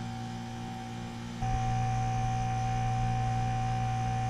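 Geothermal water-to-air heat pump running: a steady electrical hum with a thin, higher steady whine over it, which steps up louder about a second and a half in and then holds steady.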